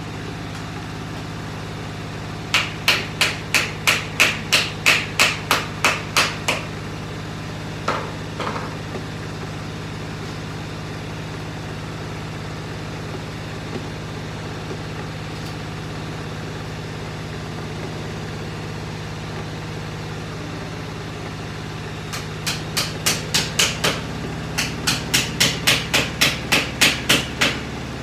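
Hammer blows on a blue plastic basket frame being put together, in quick even runs of about three to four taps a second: some fourteen taps a few seconds in, two knocks around eight seconds, then a longer run over the last six seconds. A steady low hum runs underneath.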